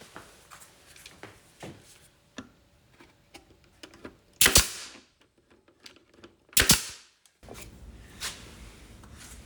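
Two loud, sharp strikes on wood about two seconds apart, like hammer blows, amid lighter clicks and taps of wooden parts being handled.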